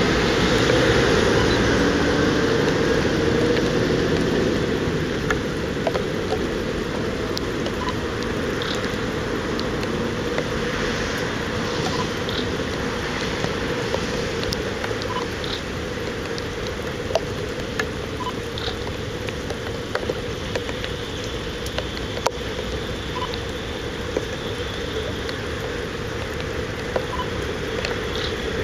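Freight train rolling through the yard: a steady rumble, louder for the first few seconds, with sharp clicks scattered throughout.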